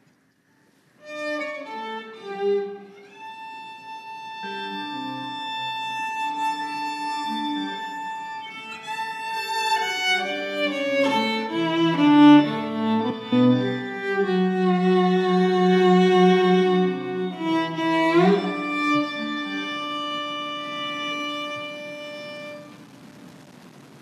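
Solo violin playing a slow melody of held and moving notes. About three-quarters of the way through it makes a quick upward slide, and it stops a second or so before the end.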